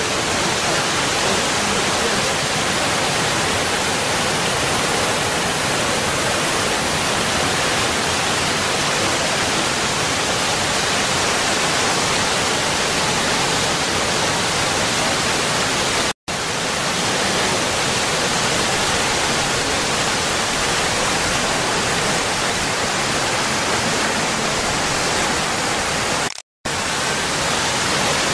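Water of the Oval Fountain (Fontana dell'Ovato) at Villa d'Este pouring as a wide curtain into its basin pool: a loud, steady rush of falling water. It is broken by two short silences, one a little past halfway and one near the end.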